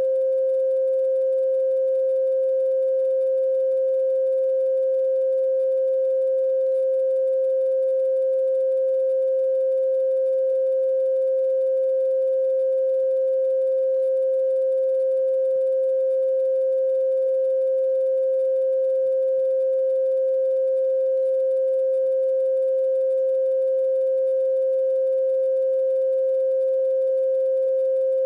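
A single steady pure tone a little above 500 Hz, unchanging in pitch and level, with faint higher overtones: an electronic sine-like drone.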